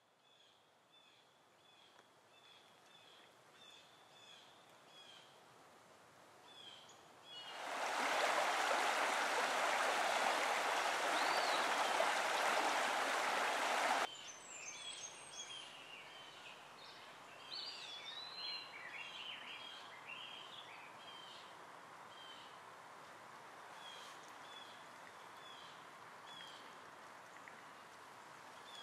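Songbirds chirping short, repeated notes, then about seven seconds in the loud rush of a shallow stony river comes in and cuts off abruptly about six seconds later. After it, birds keep singing over a faint steady rushing.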